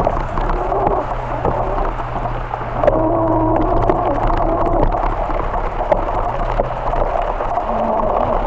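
Riding noise from a moving electric bike: wind rumble on the microphone and tyres running over grass and gravel, with a steady low hum and a wavering hum above it.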